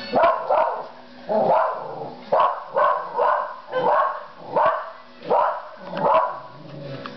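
Small dog barking repeatedly: about a dozen short barks in quick succession.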